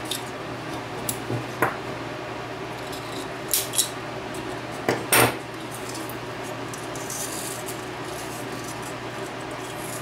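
Short metallic snips, clicks and scrapes as the thin sheet-metal plate of an EL34 power tube is cut and bent open, a handful of them spread out with the loudest about halfway through, over a steady low hum.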